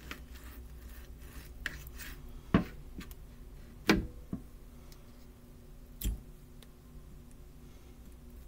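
Knife and fork cutting a breaded pork chop on a plate: light scraping and scratching, with three sharp clicks of metal against the plate a second or two apart. A steady low hum lies underneath.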